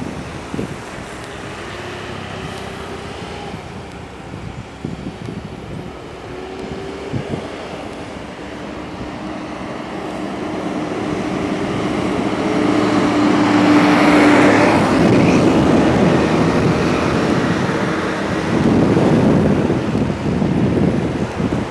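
Heavy traffic grinding up a steep mountain road: the engines of cars, a coach bus and trucks pulling uphill. A steady engine drone builds to its loudest a little past halfway as a bus passes close, and there is another loud surge near the end.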